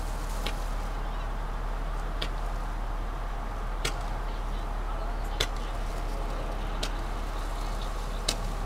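Aerial fireworks firing off as six sharp pops, about one every second and a half, over a steady low rumble, heard through a dashcam inside a car.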